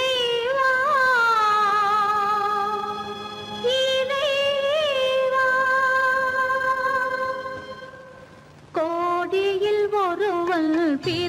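A woman's singing voice in a 1960s Tamil film song, holding long, high notes with a wavering vibrato and no words picked out. There are three drawn-out phrases; the second fades away about eight seconds in before the next one starts.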